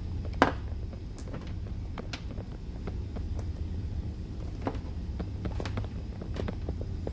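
Scattered small clicks and taps of multimeter probes and a power cord being handled on a bench, the sharpest click about half a second in, over a steady low hum.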